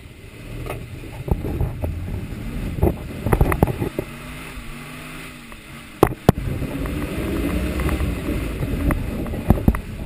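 Old Jeep's engine running and revving up and down under load, with knocks and clatter from the body as it jolts along; two sharp knocks about six seconds in.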